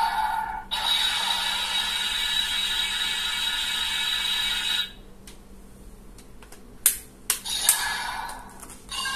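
Electronic Ultraman toy blaster playing a steady electronic sound effect through its small speaker for about four seconds, then a few sharp plastic clicks as its parts are worked by hand.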